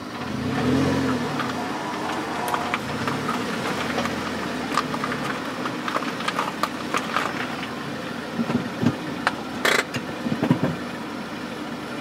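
Car exhaust heard from a microphone clamped right beside the tailpipe while rolling slowly: the engine note rises and swells in the first couple of seconds, then settles to a steady low drone. Scattered sharp ticks and knocks run through it, with a short hiss a little before ten seconds.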